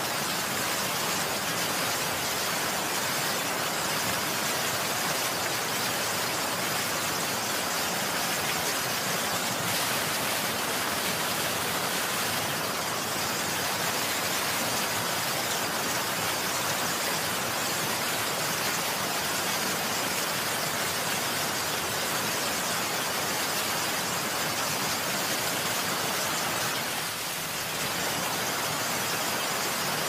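Steady hiss of heavy rain, with no thunder or other events.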